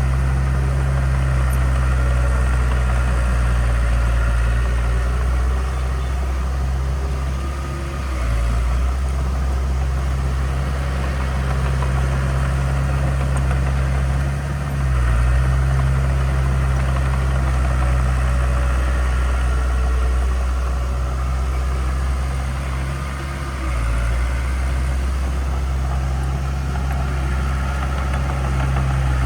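Heavy diesel engine of a construction machine running with a steady low drone. Its note dips and shifts briefly a few times, around 8, 15 and 24 seconds in.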